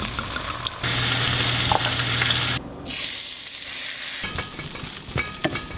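Food sizzling in a hot pan while being stirred, the sound changing abruptly about a second in and again midway, with a few light utensil clicks near the end.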